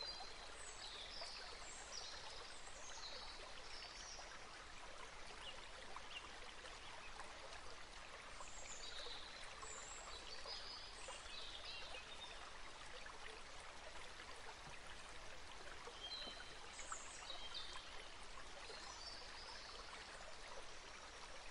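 Faint, steady flowing-water noise like a stream, with scattered short, high chirps throughout.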